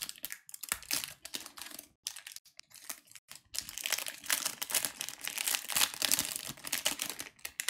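Trading-card pack wrapper of a Topps Match Attax 101 pack crinkling and tearing as it is opened by hand, in irregular crackles with brief pauses about two and three seconds in.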